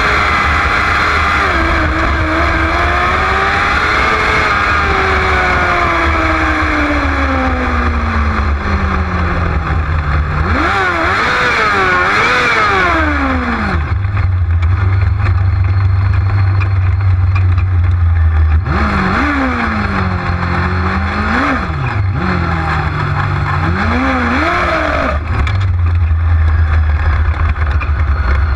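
Winged sprint car's engine heard onboard, its pitch falling steadily as the car slows, then a few quick revs. After that it settles into a low, steady rumble broken by short throttle blips near the end.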